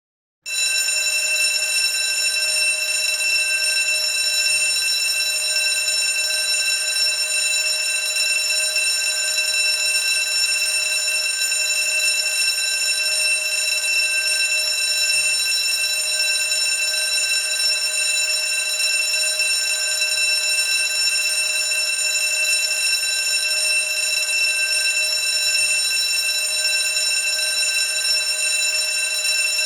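School bell ringing without a break, a steady shrill ring much like a burglar-alarm bell; it starts abruptly just after the beginning.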